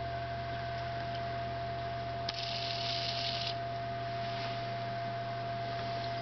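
A single key click, then three hobby RC servos whirring for about a second as they drive together to full travel at a slowed, preset speed. A steady hum runs underneath.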